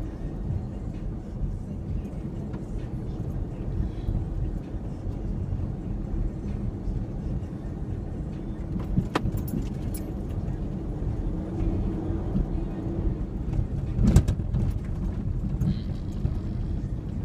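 2003 Ford Ranger 4x4 pickup driving off-road: a steady low engine and drivetrain rumble, with a sharp knock about nine seconds in and a heavier jolt about fourteen seconds in.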